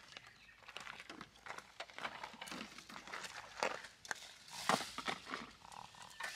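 Footsteps crunching on gravel and a plastic bag rustling, with light knocks of cups being handled on a table: a run of irregular crunches and clicks, loudest about five seconds in.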